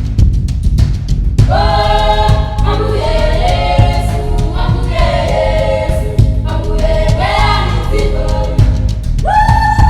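Background music: a choir singing long held notes over a steady low beat, the voices coming in about a second and a half in.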